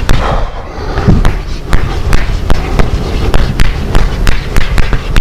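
Chalk tapping and scraping on a blackboard as words are written: an irregular run of sharp taps, about three a second.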